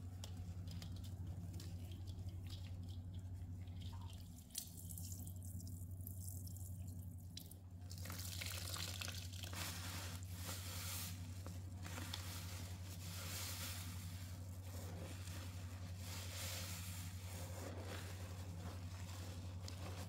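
Pine cleaner being poured onto a sponge, with liquid splashing and dripping from about eight seconds in, over a steady low electrical hum.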